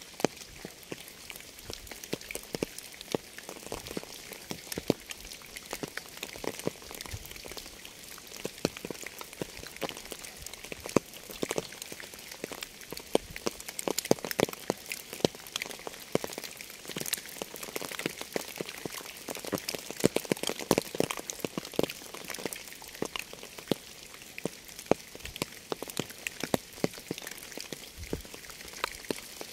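Rain falling steadily, with a continuous hiss and many distinct drops striking a surface close by.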